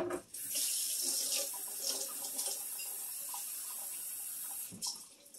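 Kitchen tap running water into an empty tomato soup can, a steady hiss that starts just after the beginning and shuts off near the end.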